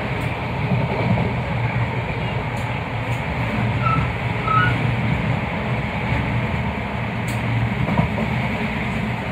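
Class 323 electric multiple unit running at speed, heard inside the carriage: a steady rumble of wheels on rails, with a few light clicks.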